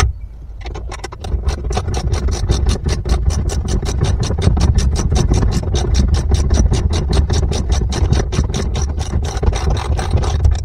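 Socket ratchet wrench clicking rapidly and evenly as a nut and bolt are run on to fasten the steering helm mechanism, over a steady low rumble.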